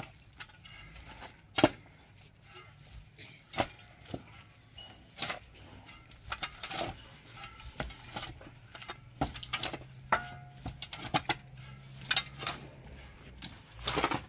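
About fifteen sharp knocks and clinks at irregular intervals, like hard objects being handled and set down.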